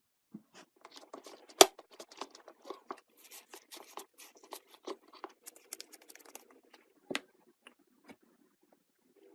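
Busy handling noise: a quick run of small clicks, scratches and crinkles, with one sharp loud click about a second and a half in. It thins out to a few isolated ticks near the end.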